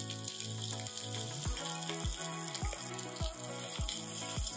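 Sliced onions sizzling in hot oil in a stainless steel pressure cooker, stirred with a slotted spoon. Background music with a soft drum beat comes in about a second and a half in.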